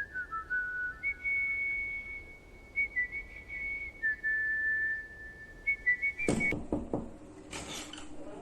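Someone whistling a slow tune in long held notes that step between a few pitches. About six seconds in, this gives way to a short clatter of knocks and rustling.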